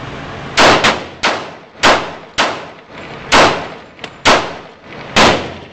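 Pistol shots from a SIG Scorpion handgun: about seven sharp reports at an uneven pace, a few of them quieter than the rest, each trailing off in a short echo.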